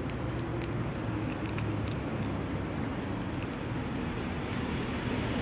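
Steady low rumble of road traffic, with a few faint clicks from a kitten chewing wet cat food.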